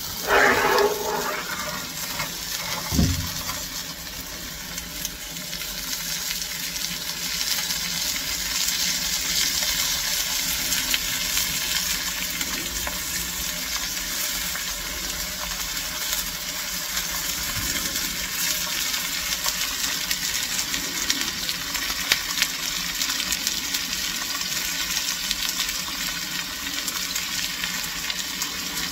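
Pork steak, mushrooms, onions and peppers sizzling steadily on a coal shovel held in a steam locomotive's firebox, over the hiss of the coal fire. A scrape in the first second and a single knock about three seconds in come from the shovel being worked into the firehole.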